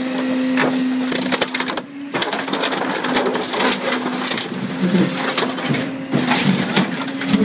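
New Way Cobra Magnum rear-loader garbage truck's hydraulic packer crushing a Pontiac Grand Am car body. A steady drone from the truck's hydraulics runs under repeated cracks, snaps and squeals of crumpling metal and plastic, with a brief lull about two seconds in.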